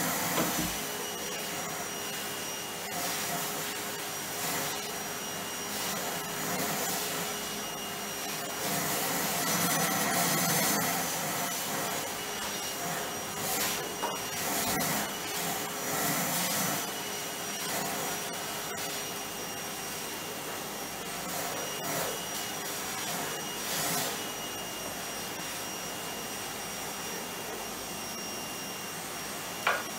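Vacuum cleaner running steadily with a constant motor whine as its hose nozzle is worked over the floor. A sharp knock near the end.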